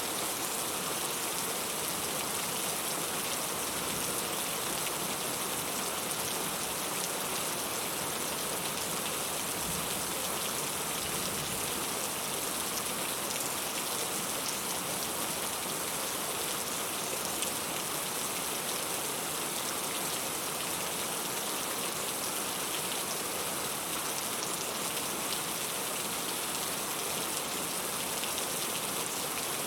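Steady rain falling, a dense patter of drops with no let-up.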